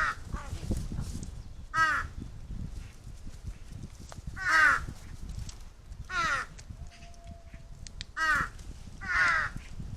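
Large-billed crows cawing, about five short harsh caws a second or two apart, each falling in pitch. Strong wind rumbles low on the microphone underneath.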